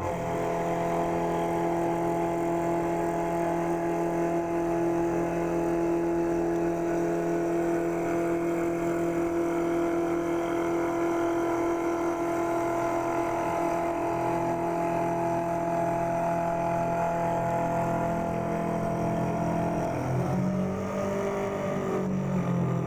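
CNC wood lathe running: a steady motor whine made of several held tones over a noisy hum. About twenty seconds in, the pitch dips and rises again, as the drives change speed.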